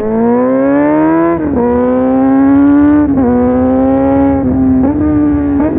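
Motorcycle engine under way, heard from the rider's position: the engine note climbs under acceleration, drops at a gear change about a second and a half in, then holds fairly steady with a few brief dips as the throttle is eased and reopened.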